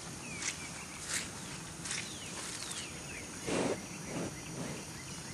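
Birds calling with short, falling chirps over a steady outdoor background. About three and a half seconds in there is a brief rough noise, followed by two fainter ones.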